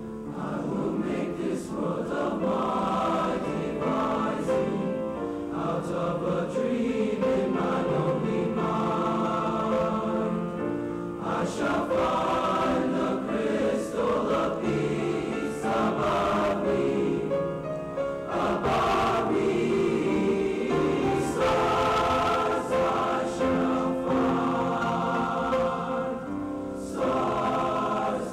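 Junior high school choir singing a song, sustained sung notes with crisp consonants.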